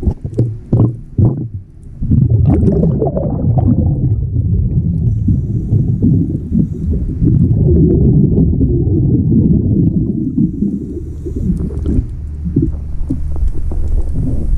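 Scuba diver's exhaled bubbles rushing past the camera underwater: a long, low, irregular bubbling rumble, after a few short bubbly bursts in the first two seconds.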